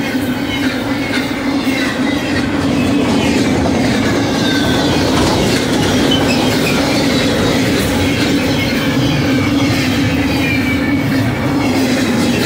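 Double-stack container train's well cars rolling past close by at speed: a steady loud rumble of steel wheels on the rails over a constant low drone, with faint high wheel squeals gliding in pitch.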